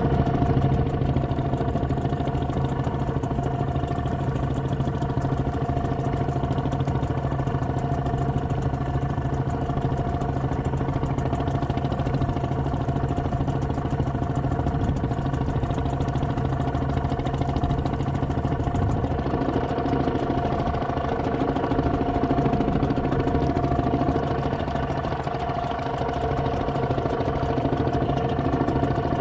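Small boat engine running steadily at low speed, an even hum that holds one pitch.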